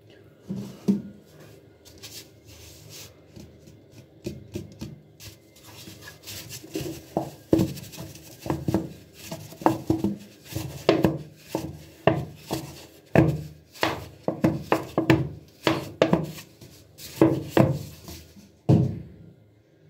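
A white plastic bottle shaken upside down over a plastic tub to dispense powder: a run of sharp rattling shakes, about two a second, starting around six seconds in, after quieter handling and one knock about a second in.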